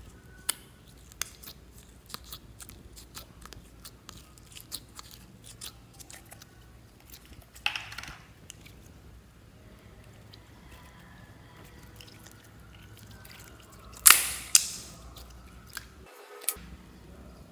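Clear jelly slime being poked and pressed in its plastic tub, giving a string of small sticky clicks and pops. About fourteen seconds in, two louder wet slaps as the slime drops into a glass bowl.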